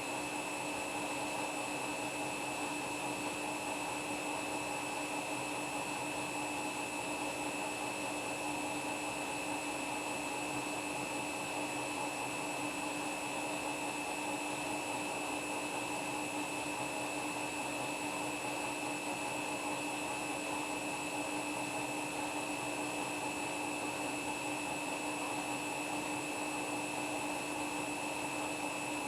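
Washing machine spinning footballs at a steady high speed: a constant whine and hum that holds unchanged, with no knocking.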